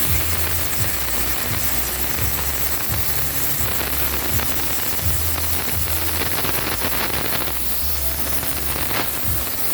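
CNC router spindle running and cutting wood, a steady hissing whir.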